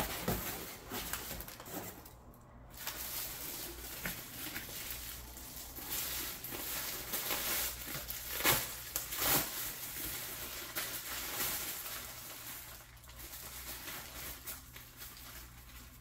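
Gift packaging handled and unwrapped: irregular rustling and crinkling, with two louder crackles about halfway through.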